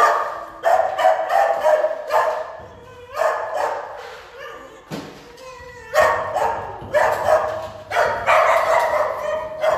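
Kennelled dogs barking, a run of repeated barks in several bursts with short pauses between them.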